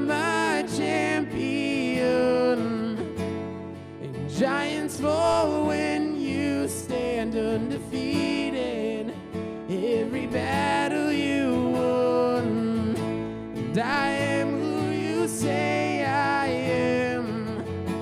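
Live worship song: a man singing while strumming an acoustic guitar, with keyboard accompaniment holding chords underneath.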